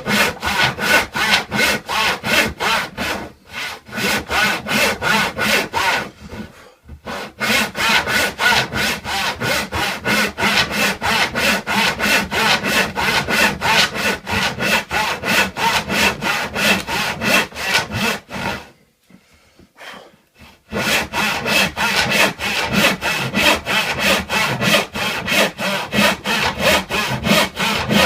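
Hand saw cutting wood in rapid, even back-and-forth strokes, stopping briefly a couple of times and pausing for about two seconds past the middle before sawing on.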